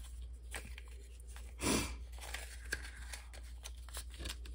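Paper banknotes rustling and crinkling as they are counted and shuffled by hand, with scattered small clicks, and one brief louder puff of noise a little under two seconds in.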